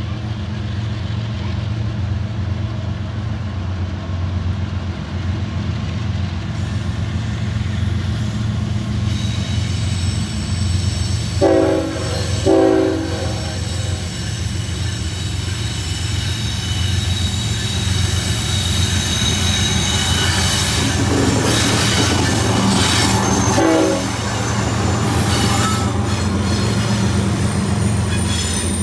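Diesel freight locomotives running with a steady low engine drone, giving two short horn blasts a little before halfway and more horn a few seconds later. A high steady squeal of wheels on the rail builds from about a third of the way in.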